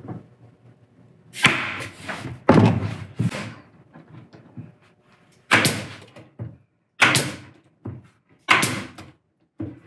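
Pneumatic nail gun firing into plywood, several sharp shots one to two seconds apart, each with a brief hiss of exhaust air, as a plywood border strip is fastened to a panel.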